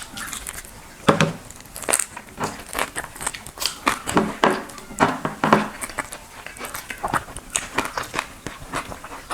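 Close-miked eating of a meal of watered rice (pakhala) with fried fish: irregular chewing with crunches, wet mouth clicks and smacks several times a second.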